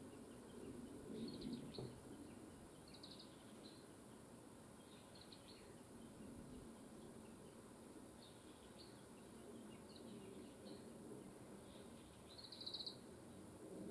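Small songbirds chirping faintly, with short high chirps and trills every second or two, over a low steady rustle of wind in leaves.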